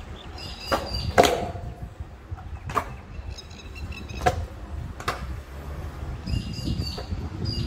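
Stunt scooter wheels rolling on concrete with a low rumble, broken by a series of sharp clacks and knocks from the scooters, the loudest about a second in.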